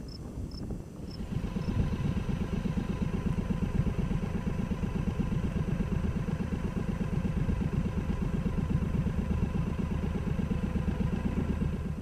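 An engine running steadily, coming in about a second in and cutting off at the end; a few short high chirps repeat evenly in the first two seconds.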